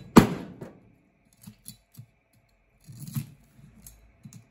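Chinese cleaver chopping through a yellowtail's head on a cutting board: one heavy chop just after the start, then a few light knocks and taps as the blade and the head are shifted for the next cut.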